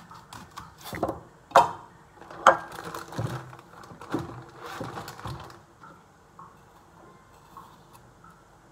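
Food-preparation handling sounds: a few sharp knocks and clacks, the loudest two about a second apart, then a few seconds of plastic bag crinkling and rustling, then only faint small handling noises.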